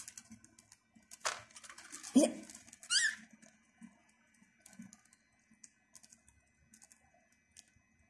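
Budgerigars pecking at seed in a cage, making light, irregular clicks. A brief budgie chirp comes about three seconds in, just after two louder short noises.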